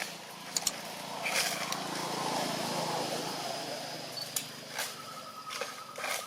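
A passing motor vehicle's engine growing louder and then fading away over a few seconds, with a few sharp clicks before it.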